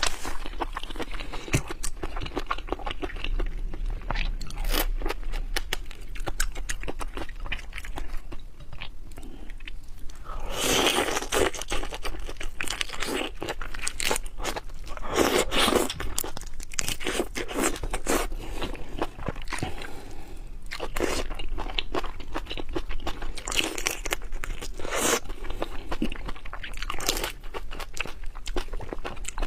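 Close-up crunching and chewing of food in the mouth: a dense run of irregular crisp crackles, with louder bursts of crunching now and then.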